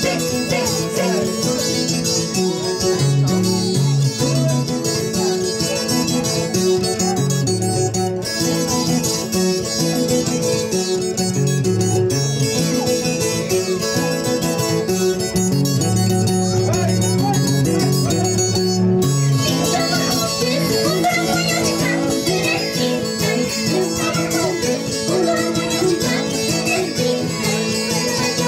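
Live pumpin music from Ayacucho, led by a guitar playing plucked melody and a steady bass line, amplified through a PA.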